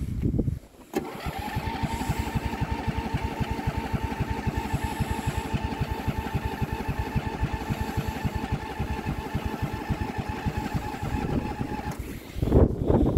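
Allis-Chalmers AC130 lawn tractor's electric starter cranking the cold engine: a steady whine with fast, even pulses that kicks in about a second in and runs for about eleven seconds. Near the end the whine stops and a louder, rough burst follows as the engine fires.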